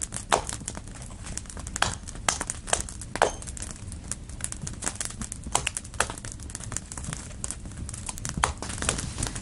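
Footsteps crunching in snow, an irregular series of crisp crunches a few times a second.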